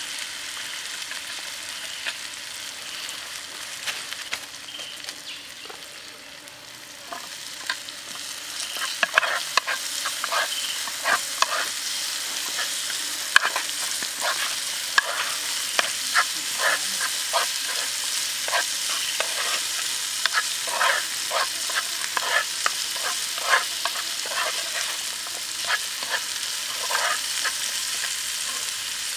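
Garlic, shallots and chili sizzling in hot oil in a square pan. About eight seconds in it gets louder and busier: diced carrots are stirred in, with many short scrapes and clinks of a metal spoon against the pan.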